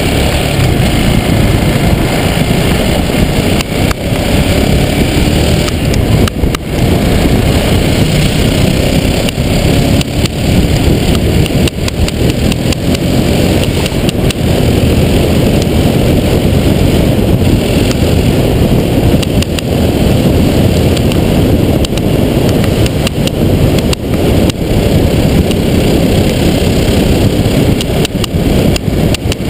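Motorcycle riding at road speed: its engine and road noise are loud and unbroken, with no let-up.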